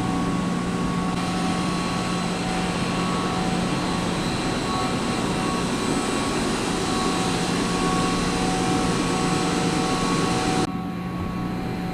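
Water-tube hot water boiler firing at low rate, its burner and variable-frequency-drive draft fan running as a steady roar with several steady whining tones over it. About eleven seconds in, the sound turns duller and a little quieter.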